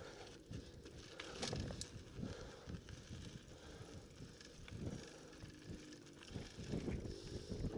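Mountain bike rolling down a loose, stony dirt trail: tyres crunching over gravel and the bike rattling and knocking over bumps, louder about a second and a half in and again near the end.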